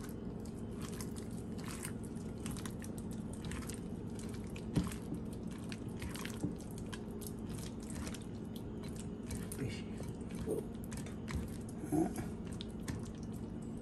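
Hands kneading and squishing mashed potato with spices in a bowl: soft, irregular wet squelches and clicks over a steady low hum.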